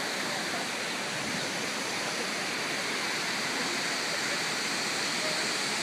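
Steady rush of the Reedy River waterfall: an even, unbroken hiss of falling water.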